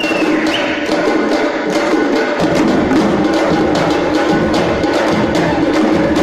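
Live drum-ensemble music: several barrel drums slung from the dancers' shoulders, beaten in a fast, dense rhythm of crisp strokes. Deeper beats come in about two and a half seconds in.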